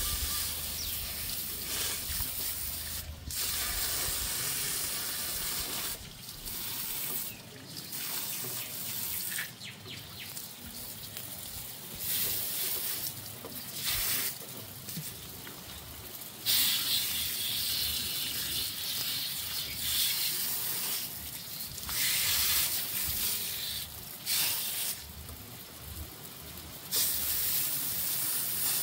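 Water spraying from a garden hose trigger nozzle onto a puppy's wet fur and the concrete, a hissing spray that breaks off briefly and comes back many times.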